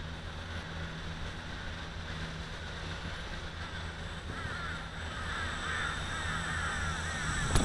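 Birds cawing in runs of short, repeated falling calls, strongest from a little past halfway, over a low steady hum that grows a little louder near the end.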